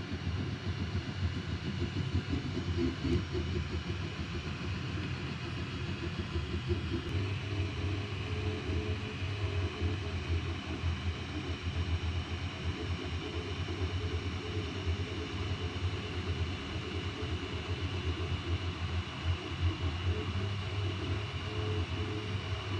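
FLSUN Q5 delta 3D printer running while printing a PLA part: a steady mechanical hum and whir of its stepper motors and fans, with a faint higher whine over it.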